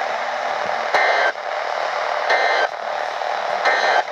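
Emergency Alert System end-of-message signal: three short bursts of two-pitch SAME data tones, a little over a second apart, over steady radio static hiss. The three bursts mark the end of the alert.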